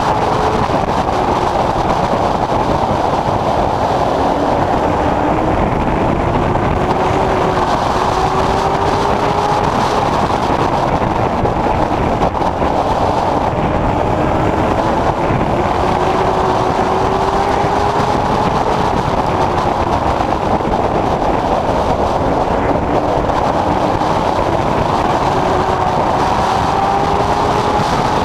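Late Model Stock race car's V8 engine heard from inside the car at racing speed, its pitch climbing in long rises and dropping back several times as the car accelerates and lifts around the oval, over steady road and wind noise.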